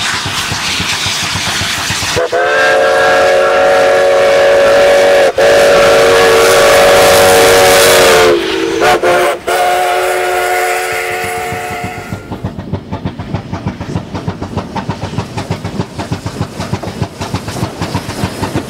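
Steam whistle of K-36 2-8-2 narrow-gauge locomotive No. 488, sounding a chord of several tones. One long blast of about six seconds starts a couple of seconds in, the pitch sags briefly, then a further blast of about two and a half seconds. After that comes a quick rhythmic clatter as the engine draws close.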